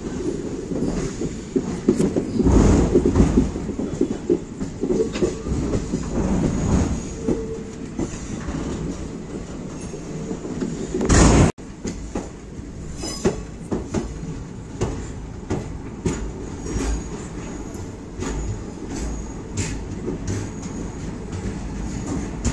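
Express train coaches rolling over yard points and rail joints, their wheels clacking, heard through an open coach door. A louder rush about eleven seconds in cuts off suddenly, and the clacks then come more spaced out.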